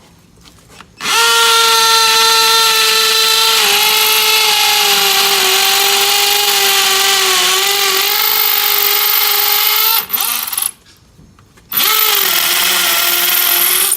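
Power drill boring a hole into a stucco wall to the depth marked on the bit, for anchor shields. Its motor whine dips slightly under load, runs about nine seconds, stops, then starts again near the end.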